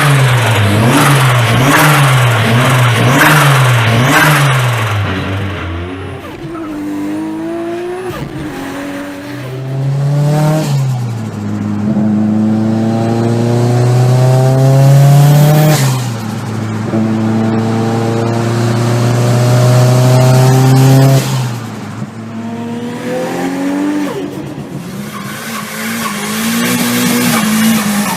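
A turbocharged car engine is revved hard. It first blips rapidly up and down several times, then pulls up through the gears, its note climbing slowly and dropping at each shift, about three times in all.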